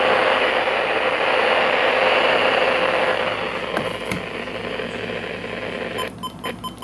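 Weather radio receiver hissing with loud static on an empty channel: no signal, because the NOAA Weather Radio transmitter it was set to has moved frequency. Near the end the hiss cuts out and a fast run of short beeps follows.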